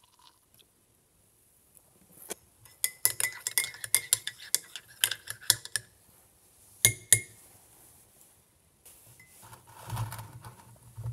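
Metal teaspoon stirring a drink in a ceramic mug, clinking rapidly against the sides for about three seconds, then two more taps a second later. Near the end, a softer rubbing noise as the mug is picked up.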